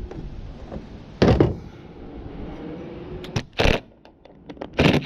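Three loud knocks or thuds, about a second in, past the middle, and near the end, with faint clicks between them.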